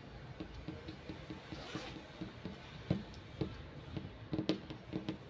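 A few light clicks and knocks over faint room tone, most of them in the second half, with a brief soft hiss about two seconds in.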